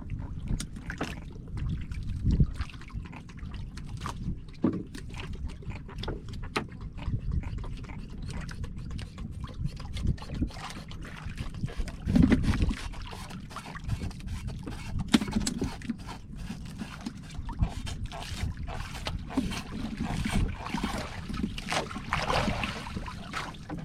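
Water lapping and sloshing, with wind rumbling on the microphone and scattered small knocks and clicks, and a brief splashy stretch near the end.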